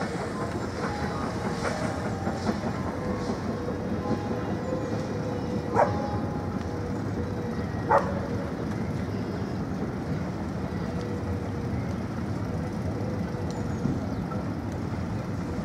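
Passenger train carriages rolling across a steel girder bridge behind a steam locomotive: a steady rumble and wheel clatter with a thin steady tone. Two sharp metallic clanks stand out, about six and eight seconds in.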